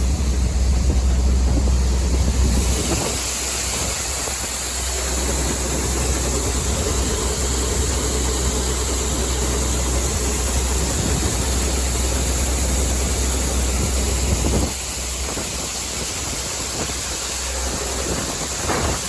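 Tractor engine running a grain auger that is unloading soybeans from a wagon: a steady engine drone under a rushing hiss. The hiss grows louder about two and a half seconds in, and the whole sound drops a step about fifteen seconds in.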